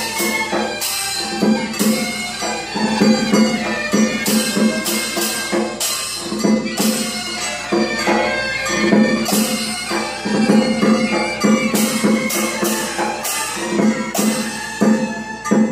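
Chinese traditional percussion band playing: gongs, hand cymbals and a drum struck in a fast, dense rhythm, with the gongs ringing on over a steady held tone.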